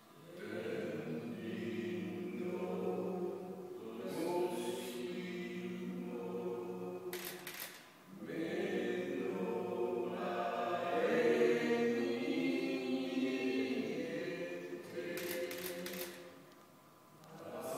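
Noh chant (utai) sung in long, held vocal phrases, with a breath about eight seconds in and a fall-off near the end.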